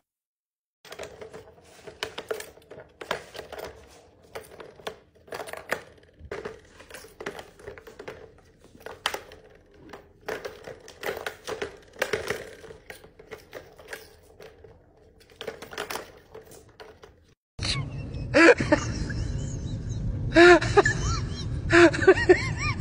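Light plastic clicks, taps and rattles from a cat's tiered ball-track toy as cats bat at the balls in it. Near the end these give way to louder whining vocal sounds over a low rumble.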